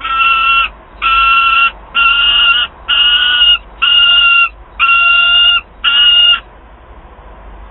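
Peregrine falcon giving a steady series of seven drawn-out, even-pitched calls, each about two-thirds of a second long, a little under one a second. The calls stop about six and a half seconds in, leaving a faint steady hiss.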